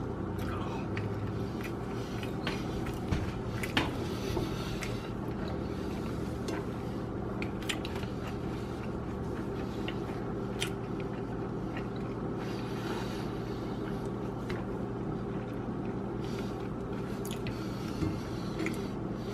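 Close-up eating sounds of someone chewing and biting a bologna tortilla: wet mouth sounds with scattered sharp clicks, loudest a few seconds in and near the end, over a steady low hum.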